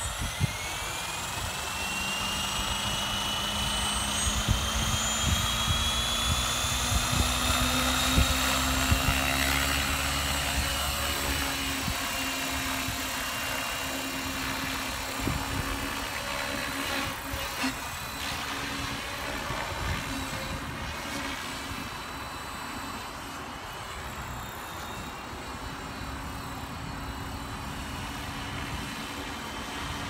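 Align T-REX 550 electric RC helicopter spooling up and flying: its motor and rotor whine rise in pitch over the first ten seconds or so as the head comes up to speed, then hold steady as it flies overhead.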